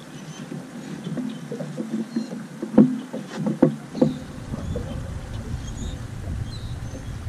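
Water slapping against a small boat's hull with steady wind and water noise, and a quick run of four sharp knocks about three to four seconds in.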